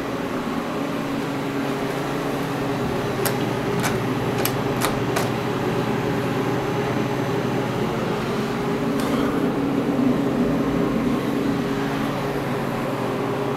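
Steady machine hum with a few sharp clicks about three to five seconds in and one more near nine seconds.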